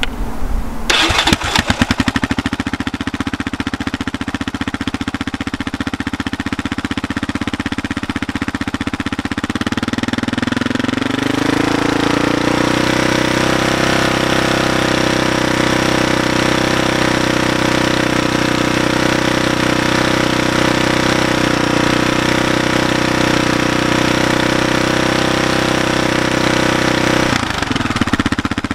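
ATV engine breathing through an FMF Q4 quiet muffler with a Power Bomb header. It runs steadily at a lower speed, then about ten seconds in rises smoothly to a higher held speed for a sound-level test, and drops off near the end. It has a deep exhaust note that measures about 93 to 95 dB: the trail-legal level.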